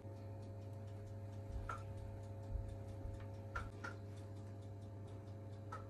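A spatula tapping and knocking against a mixing bowl while cake batter is scraped into a baking tin: a few sharp, faint taps, each with a short ring, over a steady low hum.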